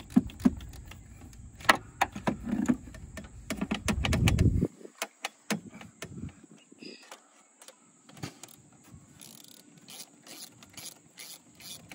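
Ratchet wrench clicking in short runs as a charge-pipe coupler clamp is loosened, then scattered clicks and knocks of the rubber coupler and metal pipe being worked loose by hand. A low rumble under the first half cuts off suddenly a little before five seconds in.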